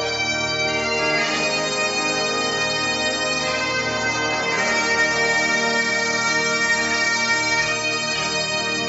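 Bagpipe music: a slow melody of long held notes over a steady drone, the melody note changing every second or two.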